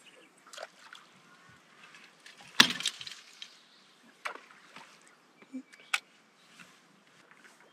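A few scattered knocks and clicks from people moving about on a small boat, the loudest a single sharp knock about two and a half seconds in that rings briefly, with lighter clicks later on.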